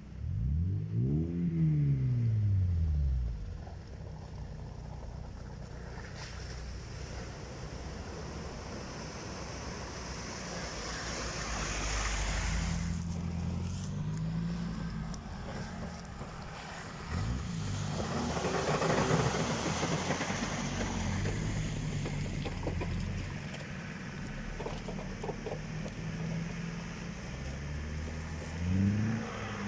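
Off-road 4x4 engine revving up and down in several swells while driving through deep forest puddles, with surges of water splashing, the loudest about 12 and 19 seconds in.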